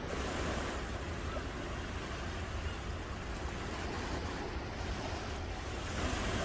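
Ocean surf washing onto the shore in a steady hiss, with a wave surging in at the start and another about six seconds in, over a low rumble of wind on the microphone.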